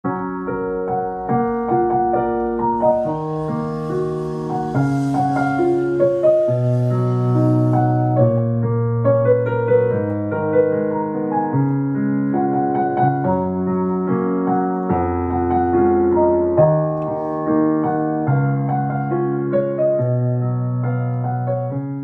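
Background piano music: a melody of held notes over a slowly changing bass line.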